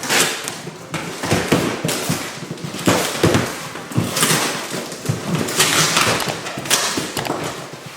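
Packaging being handled and opened: irregular crackling and rustling with sharp clicks and knocks.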